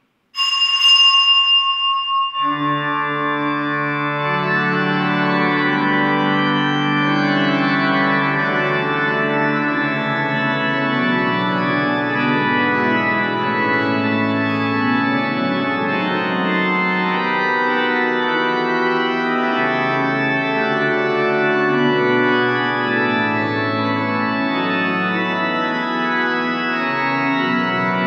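A small bell rings briefly at the start, then the church organ begins playing the entrance voluntary at the opening of Mass, full sustained chords that hold and shift through the rest.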